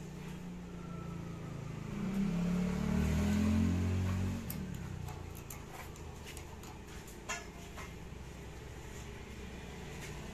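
A vehicle engine hum swells for a couple of seconds and then fades. This is followed by a run of light metallic clicks and taps as the perforated coconut-grater head is handled and fitted onto the motor shaft inside the sheet-metal hopper.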